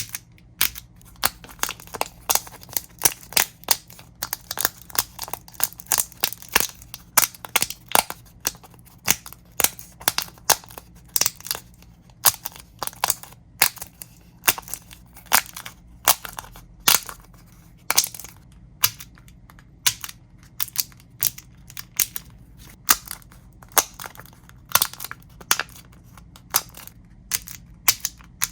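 Bubbles of a homemade, painted pop-it fidget toy being pushed through one after another, each giving a sharp pop, a few a second at an uneven pace.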